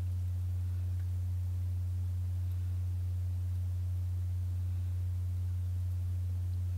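A steady low hum: one unchanging pitched tone with a faint higher overtone, and nothing else heard.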